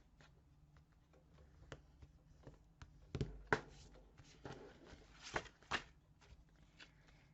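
Paper being handled and a folded score line burnished flat: faint rustling and rubbing strokes with a few sharper taps, the loudest a little past three seconds in and two more around five and a half seconds.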